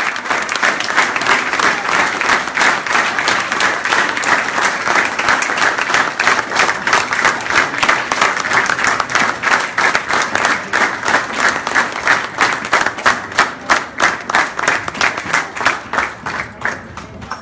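Audience applauding. In the second half the clapping falls into a steady rhythm in unison, about three claps a second, and it stops near the end.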